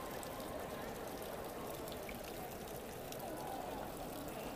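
Background hubbub of a large public gallery: a steady wash of noise with distant, indistinct voices.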